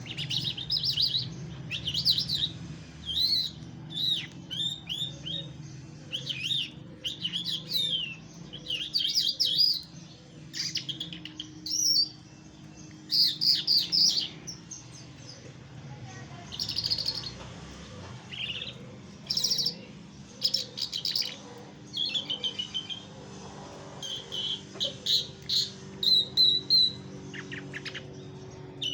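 A small songbird chirping and singing in short bursts of quick, high notes and trills, repeated every second or two, over a faint low hum.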